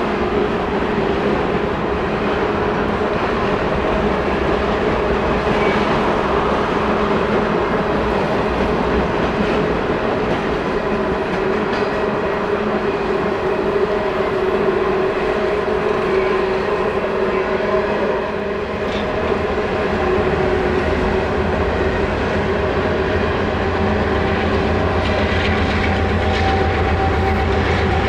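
A long freight train of open-top hopper cars rolls past steadily: a continuous rumble of wheels on the rails with a steady tone running through it. A deeper rumble builds about two-thirds of the way in.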